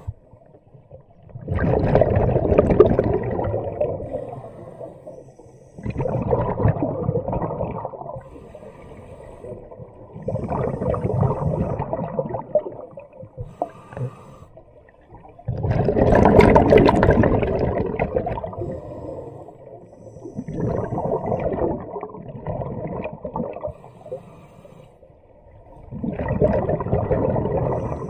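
Scuba diver breathing underwater through a regulator: a rush of exhaled bubbles about every four to five seconds, with quieter pauses between breaths.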